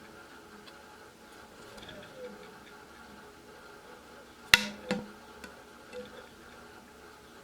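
Turnigy Multistar 2213-980Kv brushless motor with faint ticking and a few short squeaks from its bearings, a factory defect in this new motor. Two sharp knocks about half a second apart come about halfway through.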